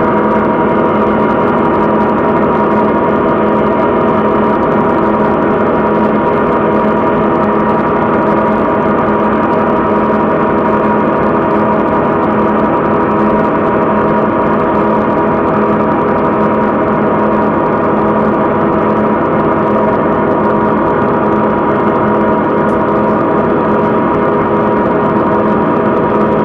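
Live noise set on a rig of patch-cabled electronics: a loud, dense drone of many steady tones layered together, holding almost unchanged throughout.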